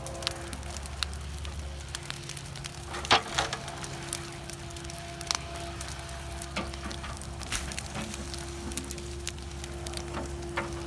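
Stump and brush fire crackling and popping, with a sharp pop about three seconds in, over the steady running of an excavator's engine.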